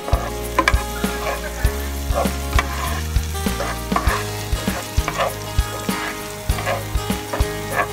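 Minced garlic sizzling in hot oil in a nonstick frying pan as it is stirred with a spatula. Background music with a steady beat plays under it.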